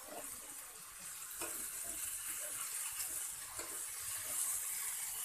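Marinated chicken pieces sizzling in oil in a flat pan on high heat: a steady hiss of frying.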